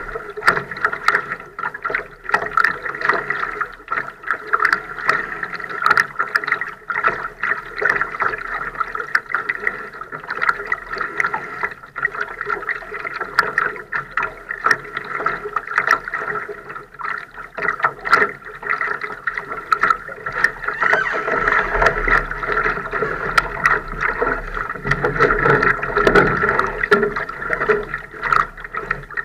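Water lapping and splashing against the hull of a Laser sailing dinghy under sail, an irregular run of small slaps and gurgles.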